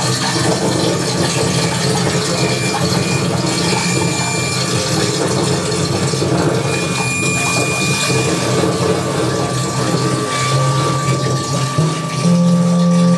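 Live experimental noise music: a dense, crackling, grinding electronic texture over a thick low rumble, with short high held tones a few times. A steady mid-pitched tone comes in about ten seconds in, and a low drone swells near the end.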